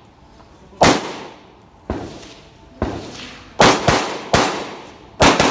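Carbine shots fired in an uneven string: one single shot about a second in, then a quick group of four from near the middle onwards, each cracking sharply and ringing out briefly. Two fainter cracks fall between them.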